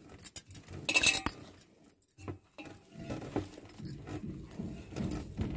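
A hand kneading and squeezing a crumbly spinach-and-flour dough in a steel bowl: irregular squishing and rustling, with bangles jingling and clinking against the bowl. A brighter clink comes about a second in, and there is a brief pause about two seconds in.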